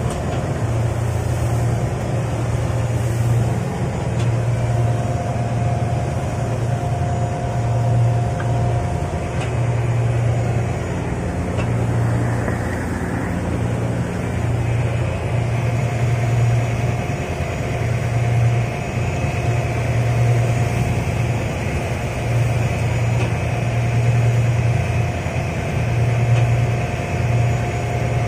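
A fishing boat's engine running steadily. Its low drone swells and dips every second or two.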